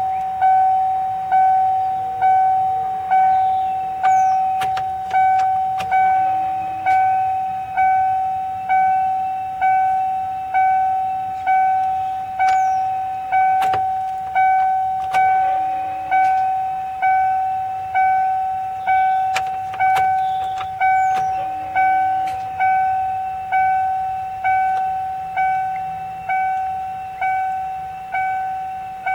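Electronic warning chime dinging steadily at about one ding a second, each ding fading before the next, with a few faint clicks and knocks over it.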